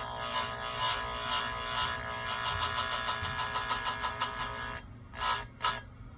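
Electric chainsaw-chain grinder running, its wheel rasping against the chain's cutters in repeated short strokes that quicken to about six a second midway. The motor hum cuts out near the end, followed by two short bursts.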